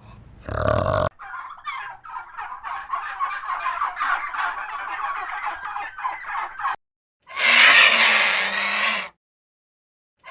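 Turkey gobbling: a rapid, rattling run of calls lasting about five seconds. Near the end comes a separate loud, harsh animal call of about two seconds.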